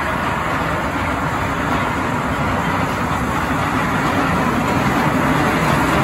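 Wacky Worm kiddie coaster train rolling along its steel track with a steady rumble that grows a little louder near the end as it approaches.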